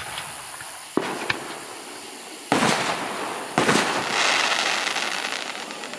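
Aerial fireworks shells bursting: a few sharp bangs in the first second and a half, two louder booms about 2.5 and 3.5 seconds in, then a long crackling from about 4 seconds in that fades out.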